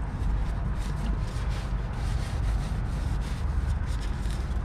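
Hand wiping residual oil off the underside of the engine after an oil change, in repeated rubbing strokes, over a steady low rumble.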